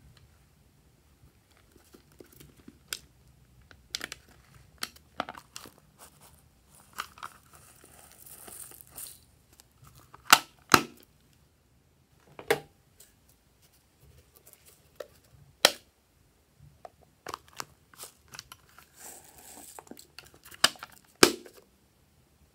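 Packets and small containers of slime decorations being handled: crinkling and tearing rustles, with scattered sharp clicks and taps, as sequins and foil pieces are tipped onto slime in a glass tray.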